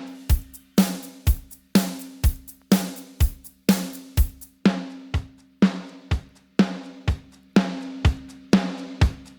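Drum kit loop played back through a vintage-era compressor and noise plugin: a steady rock beat of kick, snare and hi-hat with cymbal crashes, a hit about every half second.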